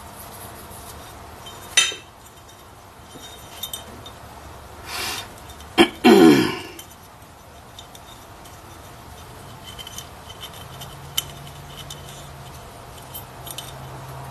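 Metal C6 transmission parts clinking and knocking as they are handled, with a short hiss about five seconds in and a loud brief burst with a falling tone about a second later.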